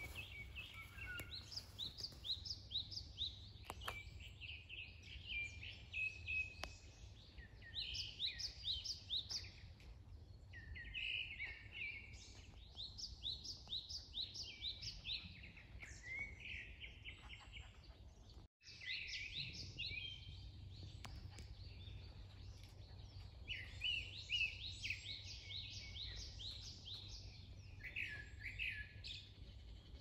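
Songbirds singing: bursts of quick, high chirps and trills, each lasting a second or two and repeating every few seconds, with a short break about eighteen seconds in.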